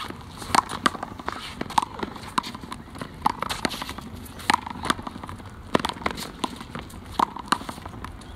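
One-wall handball rally: the small rubber ball slapping against hands, the concrete wall and the court in quick succession, a sharp strike every half second to second, with the players' sneakers scuffing as they run.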